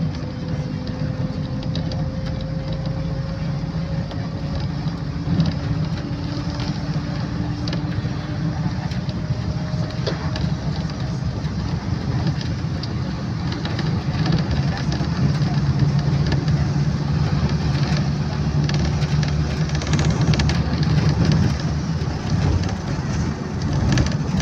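Bus engine and road noise heard from inside the moving bus: a steady low drone, with a faint whine that rises slowly in pitch over the first ten seconds or so and a few scattered clicks.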